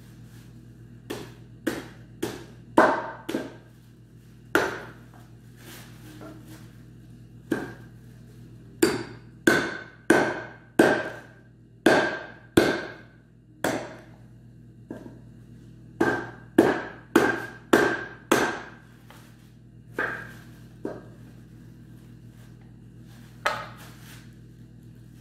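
Meat cleaver hacking through goat carcass and bone on a metal tray: about two dozen hard, irregular blows in bursts, several with a short metallic ring. The blade is dull, so the cutting is hard going.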